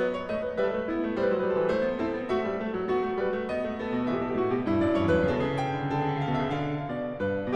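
Background piano music: a quick run of notes over a sustained bass line.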